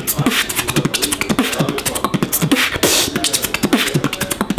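Human beatboxing: a fast, dense stream of mouth clicks and snare-like hits woven with short, low bass notes, several a second.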